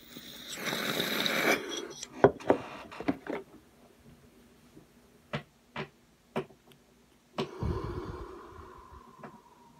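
A person smoking: a breathy hiss in the first second and a half, then a scatter of sharp clicks and taps, then a long breathy exhale of smoke starting about seven and a half seconds in that blows onto the microphone and fades.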